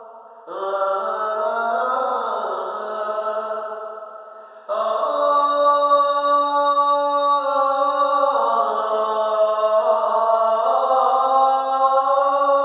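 Background music of a chanted vocal in the style of the Islamic call to prayer: long, held, gliding phrases, one entering about half a second in and a louder one nearly five seconds in.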